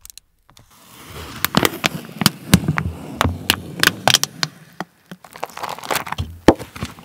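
Thin plastic film lid crackling as it is peeled off a microwaveable instant rice tray, with many sharp crinkles over a few seconds. Near the end come a few sharp taps as the upturned plastic tray is knocked against a bowl to release the rice.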